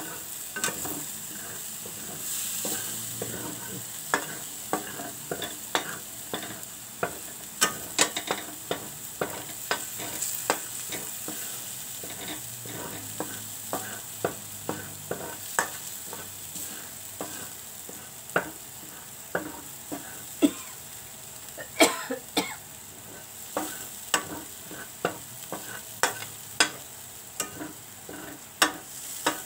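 A large metal spoon stirs and scrapes a spice paste around a thick stainless-steel frying pan, with frequent sharp scrapes and clicks against the pan. Under them, the oil-ground spice paste sizzles steadily as it fries.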